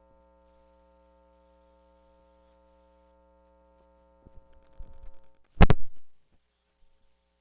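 Near silence for about four seconds, then a few light knocks and one loud thump about five and a half seconds in, as the toy is handled.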